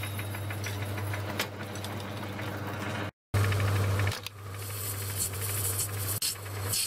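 Metal lathe running, a steady low motor hum with rattling drive noise. After an edit about three seconds in, a parting tool cuts a groove into the spinning yellow-metal bar, adding a scraping hiss that grows louder near the end.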